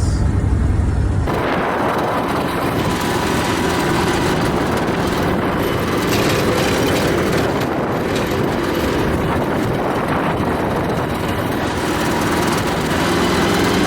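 Steady machinery noise from a running engine. About a second in, a deep engine drone changes abruptly to a steady, noisier mechanical running sound.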